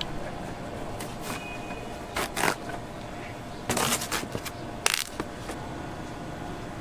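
Short scraping, rustling sounds of fruit being cut and handled at a street fruit stall: two about two seconds in, a longer cluster around four seconds and one more near five seconds. They sit over a steady background hum.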